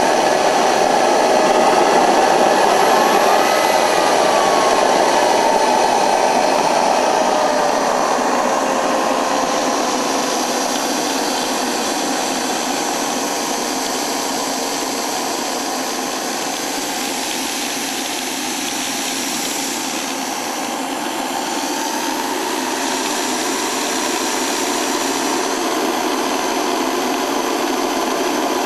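Home-built GR-5A twin-shaft turboshaft gas turbine, built around a turbocharger and burning propane, running with a steady, loud rush of noise. Over the first several seconds a whine wavers and then falls in pitch.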